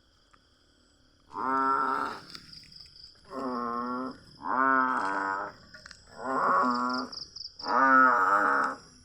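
A series of five loud, drawn-out animal-like calls about a second and a half apart, each under a second long, with a steady thin high tone running under them.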